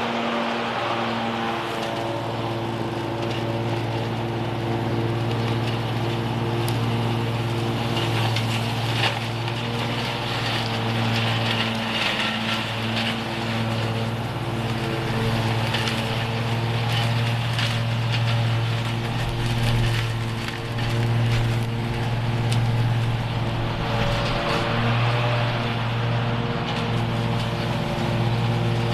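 Toro TimeCutter zero-turn mower running steadily with its blades engaged, sucking up dry leaves into the rear bagger. A steady engine drone with scattered crackling from leaves drawn through the deck.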